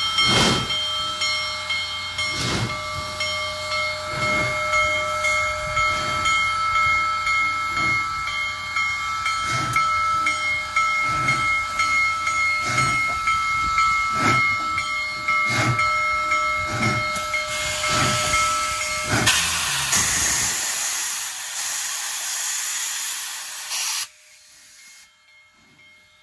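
Union Pacific Big Boy 4014, a 4-8-8-4 articulated steam locomotive, working along steadily: exhaust beats about once a second over a steady high ringing chord of tones. About twenty seconds in, the beat and the ringing give way to a loud rush of steam hiss, which cuts off suddenly near the end.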